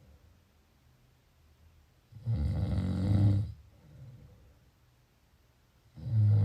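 A sleeper snoring: one loud, low-pitched snore about two seconds in, lasting just over a second, followed by a soft breath out. The next snore begins near the end.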